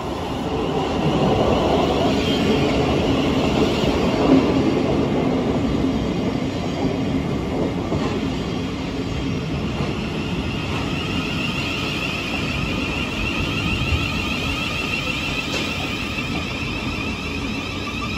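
Electric multiple unit running along the platform, its wheels rumbling and clattering on the rails, growing louder over the first couple of seconds as it comes alongside. In the second half a high, wavering squeal or whine rises over the rumble.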